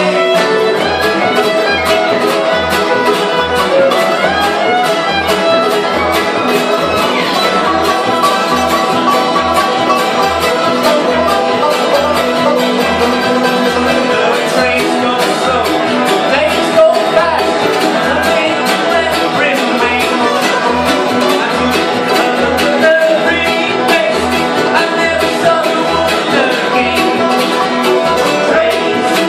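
Bluegrass band playing an instrumental passage: fiddle, banjo, mandolin and acoustic guitar together, with an upright bass keeping a steady, even beat.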